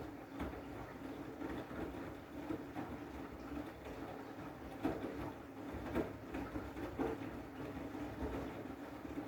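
Washing machine running a wash cycle with a load of blankets: a steady low hum with soft thumps about once a second as the drum turns.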